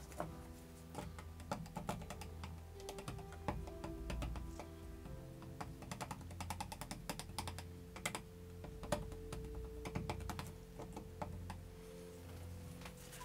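Stir stick tapping and scraping against plastic cups of pouring acrylic paint as a string is worked through the paint: irregular light clicks, several a second, with a few louder knocks.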